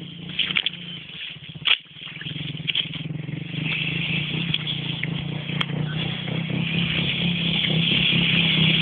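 A small motorcycle engine running and coming closer, growing steadily louder through the second half. A single sharp knock sounds a little under two seconds in.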